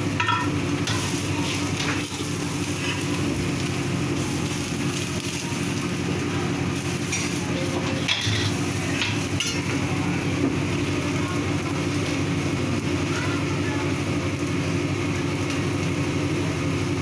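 Shredded cabbage, carrot and meat sizzling in a wok on a gas burner, with a metal ladle scraping and clanking as the food is stirred and tossed, over a steady low hum.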